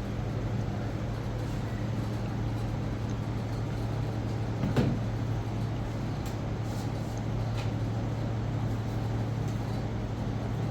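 A motor running with a steady low hum, with a single sharp knock about five seconds in.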